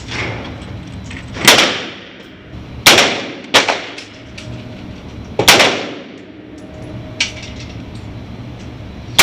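Gunshots from an AR-15 rifle being sighted in after a scope adjustment. Four loud, sharp shots, irregularly spaced over about four seconds, each with a short echo. Then a fainter crack, and another loud shot right at the end.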